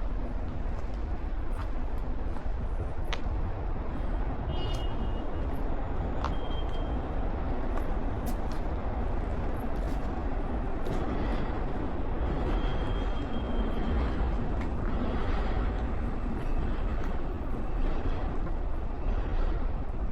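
Outdoor ambience in light rain: a steady hiss of rain over a low rumble, with scattered faint ticks and a few brief high tones.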